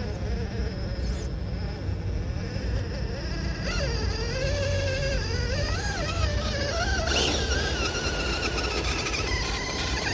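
RC crawler's electric motor whining, its pitch rising and falling with the throttle, from about a third of the way in, over a steady low rumble.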